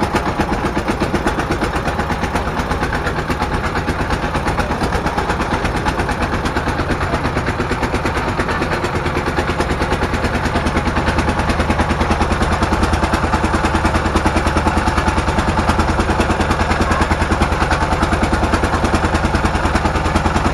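Small wooden fishing boat's engine running steadily under way, with a rapid, even knocking beat.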